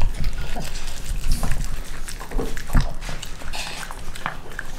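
Dog eating soft food from a stainless steel bowl: a steady run of wet chewing and licking with many short, irregular clicks.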